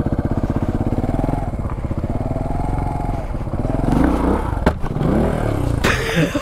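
Dirt bike engine running at a slow, steady pulse, then revving up and down as the clutch is snapped to lift the front wheel over a concrete pipe. A sharp knock sounds a little before the five-second mark as the bike hits the pipe.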